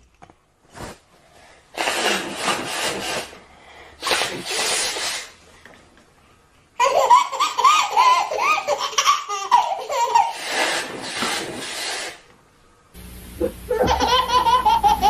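Two loud noisy blasts, each a second or so long, then a baby's belly laughter in rapid bursts for about five seconds. Near the end a different baby laughs over a steady low hum.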